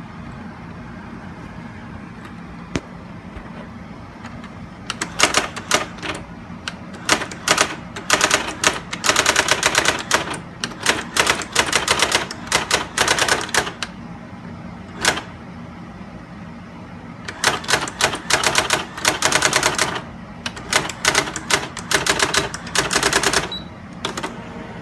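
Brother GX-6750 daisy wheel electronic typewriter printing: rapid clattering runs of character strikes in several bursts with short pauses between, starting about five seconds in, over a steady low hum.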